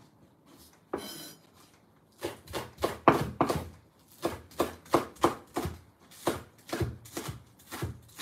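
Kitchen knife chopping spring onions on a wooden cutting board. The chops start about two seconds in and run steadily at roughly three a second.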